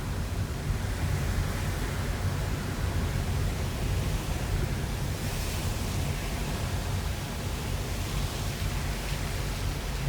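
Steady rumble and hiss of a car moving along a road, with the low rumble of tyre and wind noise, which grows a little brighter about halfway through.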